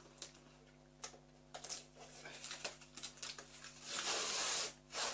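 Cardboard box being torn open by hand: scattered scratches and small crackles, then a loud tearing sound lasting under a second near the end.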